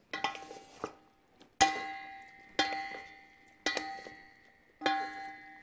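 Large stainless steel mixing bowl ringing as wooden spatulas knock against its side while tossing pasta, about five knocks roughly a second apart, each ring fading before the next.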